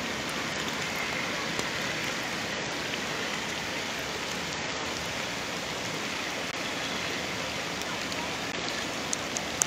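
Steady rain falling on floodwater covering a street, an even hiss of drops on standing water, with a couple of small clicks near the end.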